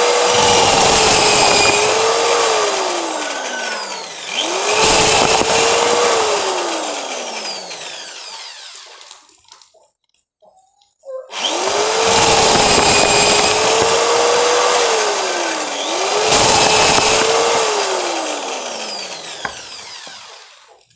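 Cordless drill spinning ears of corn to strip off the kernels: a motor whine under a loud rattling rush of kernels. It runs twice, each time sagging in pitch midway, picking up again and then winding down, with a pause of about a second about ten seconds in.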